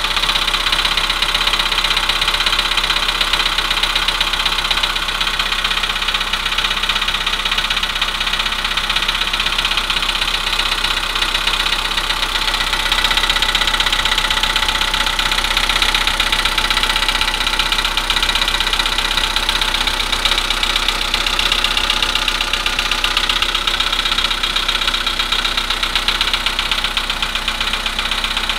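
Volkswagen Polo Sedan engine idling cold with a steady, rapid knocking. It is a cold-engine knock that has been getting worse.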